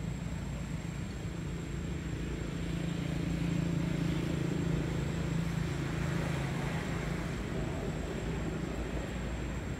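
Steady low engine drone of a passing motor vehicle, swelling about a third of the way in and then easing off.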